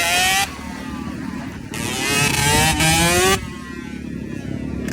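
Yamaha YZ125 single-cylinder two-stroke engine revving. A rev cuts off just after the start, then about two seconds in the engine climbs in pitch twice in quick succession before dropping back to a lower, steady note.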